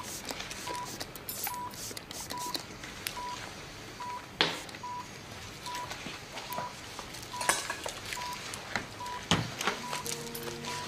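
Operating-room patient monitor beeping a short, steady pulse tone about three times every two seconds, with a few sharp clinks of surgical instruments.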